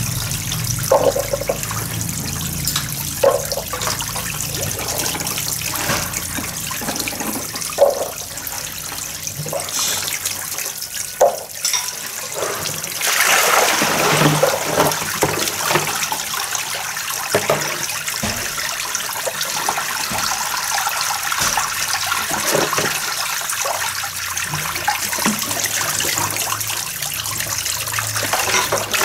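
Water running steadily from a hose into plastic washbasins while dishes are washed by hand, with a few sharp clinks of dishes. About 13 seconds in, a louder rush of water as a full basin is tipped out onto the concrete floor.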